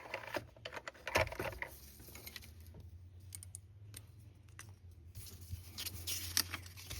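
Sheets of paper rustling, with light clicks and taps as art papers are handled, busiest in the first two seconds and again near the end, over a low steady hum.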